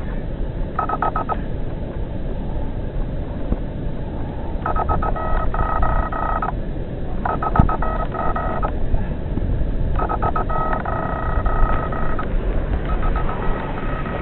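Fishing reel clicking in repeated bursts of one to two seconds, five times, as a big catfish is played on the line, over a steady low rumble.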